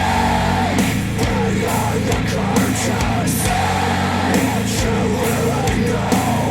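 Heavy rock music with vocals and drum hits, played back through Focal Aria 906 bookshelf speakers driven by a NAD C 338 integrated amplifier.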